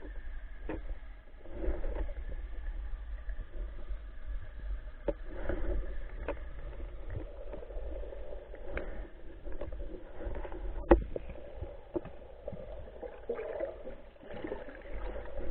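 Muffled underwater sound of moving water and gurgling, with scattered sharp clicks and knocks, the loudest just before the last third.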